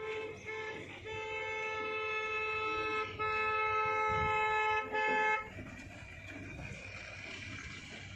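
Vehicle horn honking at one steady pitch: two short toots, then long held blasts, stopping about five and a half seconds in.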